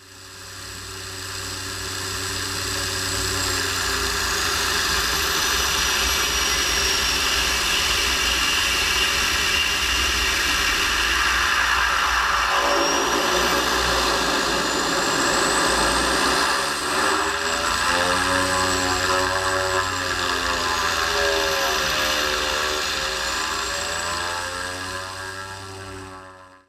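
A single-engine propeller aircraft's engine and propeller running steadily as it rolls along the runway, with a thin high whine above a low rumble of wind on the microphone. The sound fades in over the first few seconds and fades out at the end.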